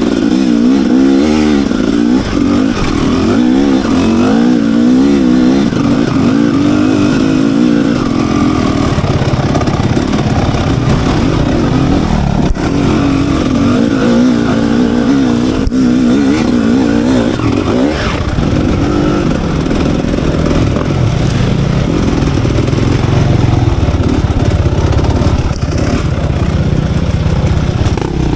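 Enduro motorcycle engine running under constantly changing throttle, its pitch rising and falling over and over.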